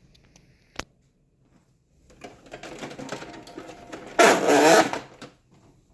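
HP OfficeJet inkjet printer's internal mechanism running as the cartridge access door is opened, pretty noisy: a single click about a second in, then a whirring, wavering motor noise that builds, peaks loudest for under a second near the end and stops.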